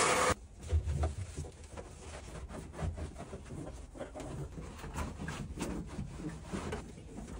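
A cleaning wand's loud hiss cuts off abruptly just after the start. Then a microfibre cloth scrubs and wipes across the bare sheet-metal floor pan of a stripped car body in short, uneven strokes, with small knocks.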